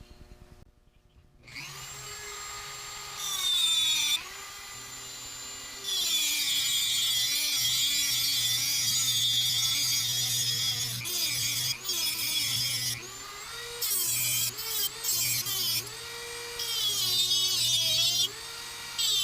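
Dremel rotary tool spinning up about a second and a half in, then grinding into the chainsaw's metal muffler to port it. It goes in long stretches of high, hissing cutting noise, with the motor's pitch dipping as it bears down. It stops and starts again several times.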